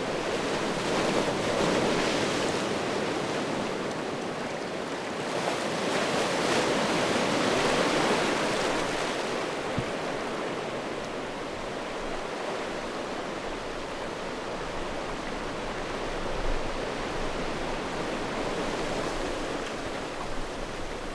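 Sea waves washing in over a boulder beach, a steady wash that surges louder twice in the first ten seconds and then eases off.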